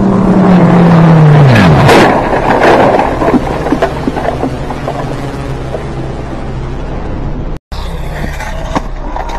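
Motorcycle crash: a high-revving motorcycle engine note falls sharply, then loud scraping and clattering with several hard knocks as the bike goes down and slides. A steady low engine hum follows.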